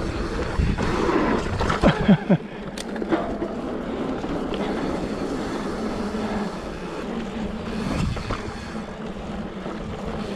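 Mountain bike rolling down a loose, dry dirt trail: steady tyre noise over dirt and gravel with wind on the microphone, and a few sharp knocks and rattles from the bike about two seconds in.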